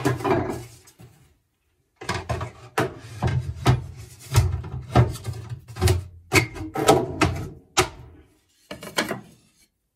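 Irregular run of sharp wooden knocks and clatters, as of wooden pieces and hand tools being handled and set down, coming thick and fast for several seconds.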